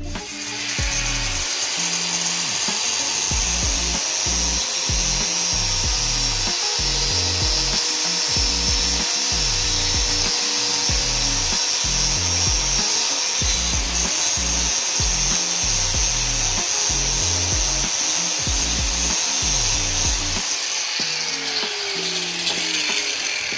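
Angle grinder grinding steel, cutting down the top of a seized, broken bolt with a nut welded onto it on a steel front suspension beam. It runs steadily under load and then winds down with a falling whine about 21 seconds in.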